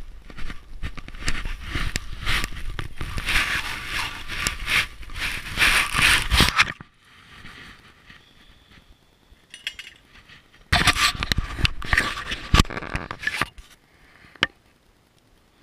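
Close rustling and scraping of something brushing right against the camera microphone, full of sharp clicks. It comes in two bursts: a long one that cuts off about seven seconds in, and a shorter one from about eleven to thirteen seconds, with quieter rustling in between.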